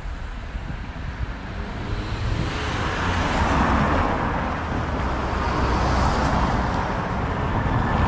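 Street traffic: vehicles passing close by, tyre and engine noise swelling about two seconds in and staying loud.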